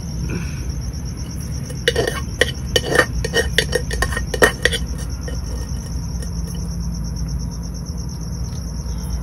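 A metal spoon scrapes and clinks against a pressure cooker and steel plates as rice is served, with a cluster of sharp clinks between about two and five seconds in. Crickets chirp steadily underneath.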